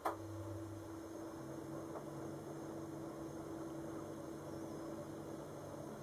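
A sharp click, then a steady low hum.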